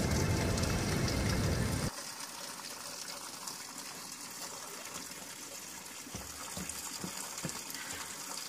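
Spring water rushing in a sandstone grotto, cutting off abruptly about two seconds in to a quieter steady hiss, with a few soft low knocks near the end.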